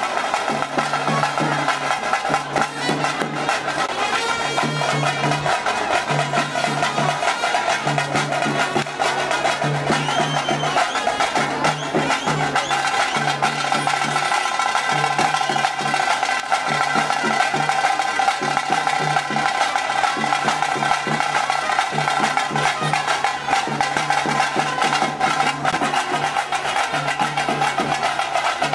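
Festival street band playing: fast, dense drumming with a held horn melody over it.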